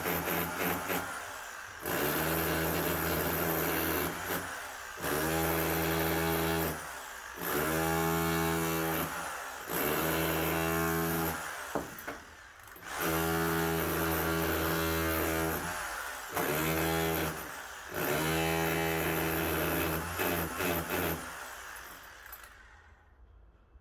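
An electric power tool run in about eight bursts of one to two seconds each, with short pauses between, holding a steady pitch in each burst; it winds down near the end.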